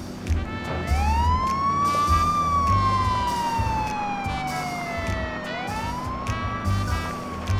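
Police car siren wailing: its pitch climbs, sinks slowly for about three seconds, then climbs again near the end, over a backing music track with a steady beat.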